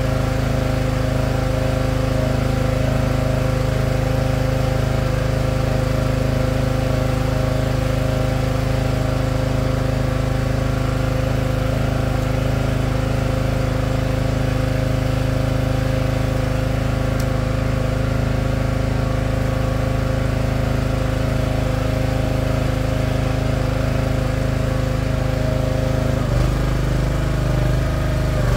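Small gas engine of a Split-fire 2265 hydraulic log splitter running steadily; its note shifts and turns uneven near the end.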